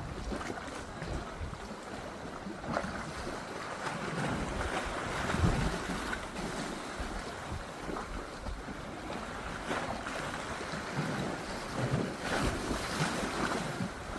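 Wind buffeting the microphone over the wash and splash of water around a boat under way.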